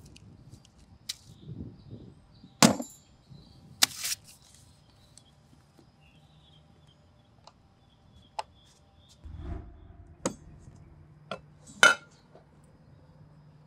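Sharp clinks and knocks of a wine glass and tableware against a table: about seven separate hits, the loudest a little under 3 s in, about 4 s in and near the end, the last with a short ring. A low thud about two-thirds of the way through is followed by a faint steady hum.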